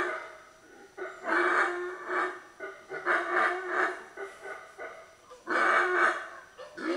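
Howler monkey roaring: a run of roars, each under a second long, with short breaks between, starting about a second in.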